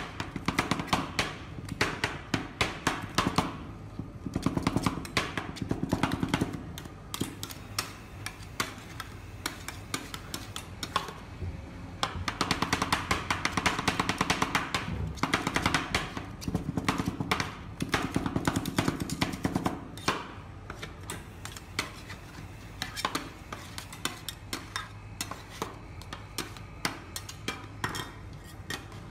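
Two metal spatulas chopping and scraping ice cream mixture on a frozen steel cold plate, a fast clatter of metal-on-metal clicks in bursts that thin out after about twenty seconds.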